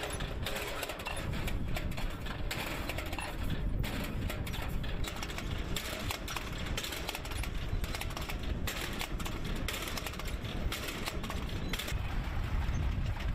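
Tractor running under a steady low rumble, with the rattling clatter of the tractor-drawn tomato seedling transplanter it pulls through the field.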